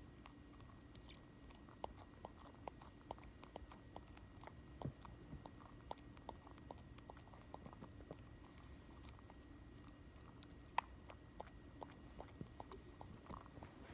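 Boston Terrier puppy grinding its teeth in its sleep: a run of faint, irregular clicks and creaks, about two or three a second.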